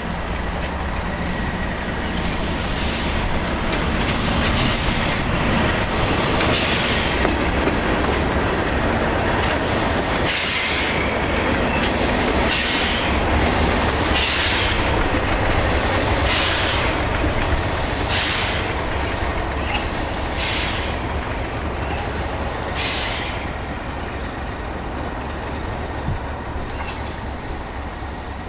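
Class 37 diesel-electric locomotive running light engine, its English Electric V12 diesel engine running steadily as it passes, with the sound of its wheels on the track. A high hiss comes and goes about every two seconds. The sound grows louder as the locomotive nears and eases slightly near the end.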